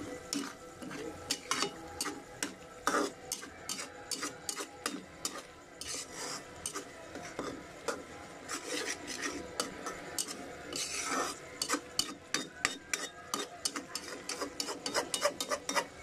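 Metal spoon scraping and stirring a thick paste in a stainless steel frying pan, in rapid, irregular scratchy strokes, with one longer, louder scrape about eleven seconds in.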